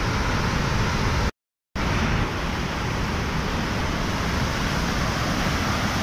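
Water rushing down a dam's open spillway gates and churning in the basin below: a loud, steady roar, broken by a brief dropout of total silence about a second and a half in.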